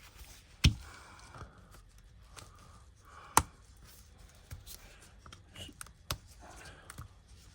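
Repair tools clicking and scraping against a tablet as its smashed screen is worked loose from the frame: three sharp clicks, the loudest about a second in, with light ticks and scraping between.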